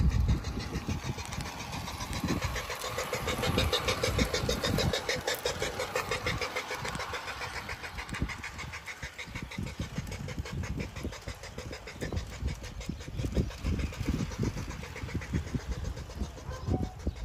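G-scale Bachmann Big Hauler 4-6-0 model steam locomotive running along outdoor garden track, its electric motor and gears whirring with a rapid, even clicking. Irregular low rumbling sits underneath, and there is a thump at the very start.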